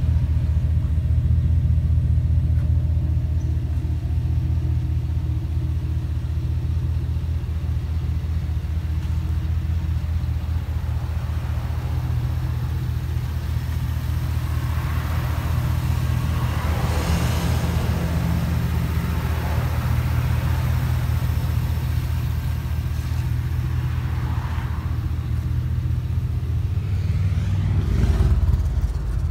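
2007 GMC Sierra 2500 HD pickup engine idling with a steady low rumble, and a brief louder swell near the end.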